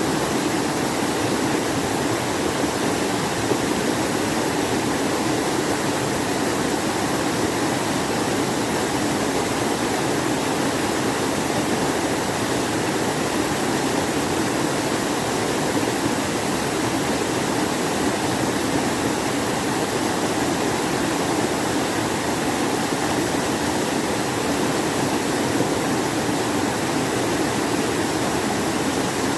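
Mountain stream rushing steadily over rocks in a valley, a constant full water noise.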